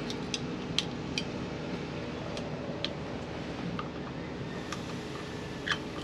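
Light metallic clicks and clinks, about eight scattered over several seconds with the loudest near the end, as parts are fitted back onto a truck's steering column. A steady background hum runs underneath.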